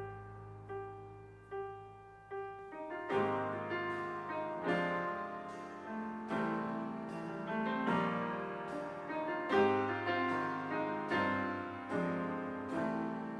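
Background piano music: a few soft, spaced notes, then fuller chords and a busier melody from about three seconds in.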